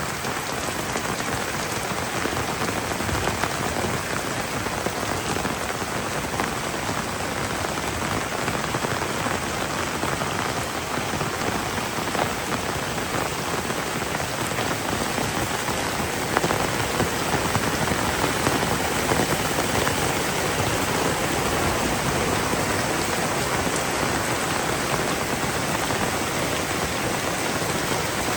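Heavy rain falling steadily in a dense, even hiss, getting a little heavier past the middle.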